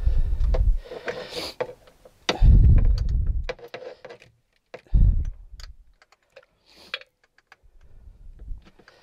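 Light scattered clicks and taps of hands working a new spin-on oil filter onto a jet ski engine by hand, with four short, loud, low rumbles.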